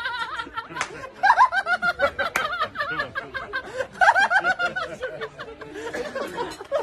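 Two men laughing hard at a joke's punchline, in repeated bursts of quick ha-ha pulses, loudest about a second in and again about four seconds in.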